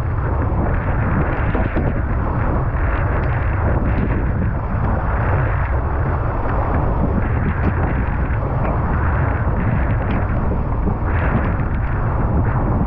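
Strong wind buffeting the microphone, with water rushing and slapping against a windsurf board sailing over choppy water; a steady, loud rumble.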